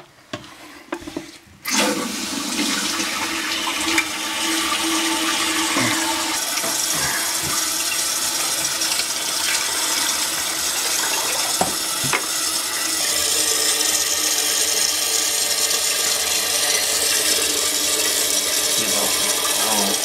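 Water pouring and splashing steadily into a toilet tank. It starts abruptly about two seconds in, after a few light clicks and knocks, with an occasional knock later on.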